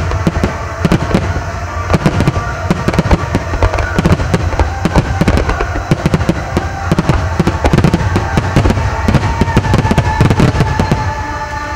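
Rapid barrage of Japanese aerial firework shells bursting, many irregular bangs every second with crackle between them.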